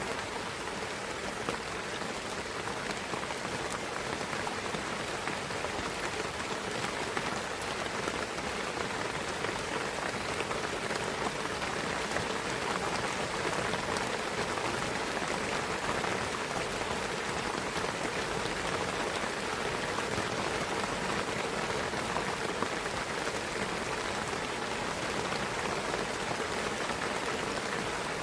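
Steady rain falling through a pine forest, an even patter of raindrops on leaves and the ground with scattered sharper drop ticks.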